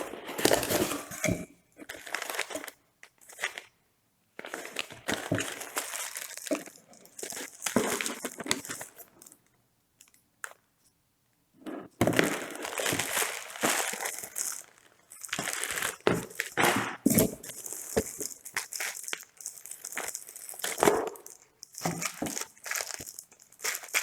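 Packaging being handled and unwrapped: crinkling and rustling in irregular bursts, with short pauses about four seconds in and again around ten seconds in.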